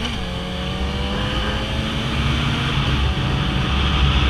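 Yamaha XJ6 motorcycle's 600 cc inline-four engine running while being ridden; its pitch drops right at the start, then holds steady.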